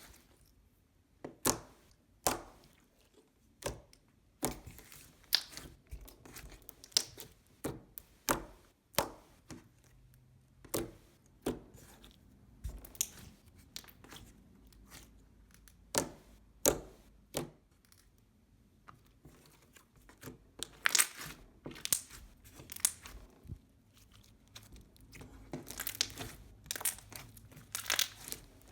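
Slime being squished and stretched by hand, giving irregular sharp clicks and pops, thicker near the end.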